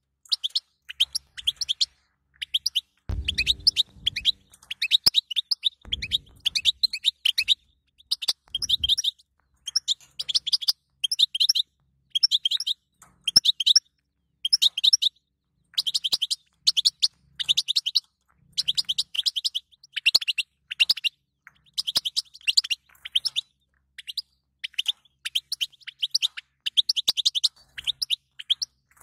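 European goldfinch twittering: rapid high chirps in short clusters, following one another almost without pause.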